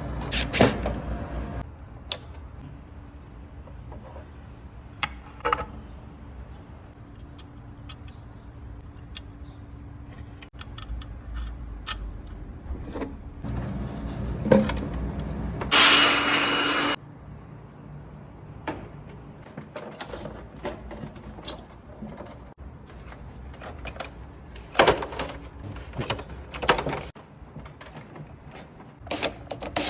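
Scattered clicks, taps and knocks of small parts being handled, with a louder burst of noise lasting about a second about sixteen seconds in.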